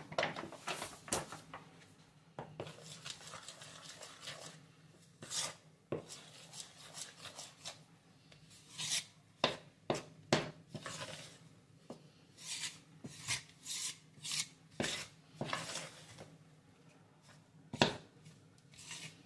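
Bread dough being mixed in a bowl: a utensil scraping and knocking against the bowl in irregular strokes.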